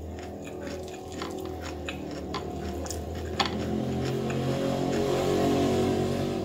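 Close-up mouth sounds of someone eating with his fingers: wet chewing and smacking clicks, sharpest about three and a half seconds in, over a steady low hum. In the second half a low drone swells up and becomes the loudest sound.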